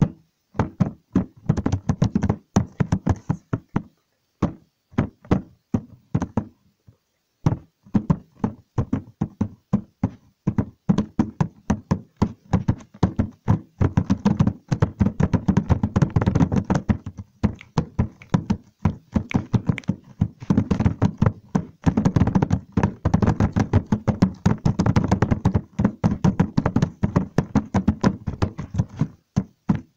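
Rapid, irregular knocking and tapping, several hard strikes a second, broken by a few short pauses.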